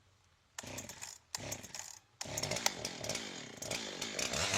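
A chainsaw cutting into a log. It comes in two short bursts, then runs on from about two seconds in, its engine pitch rising and falling as it revs.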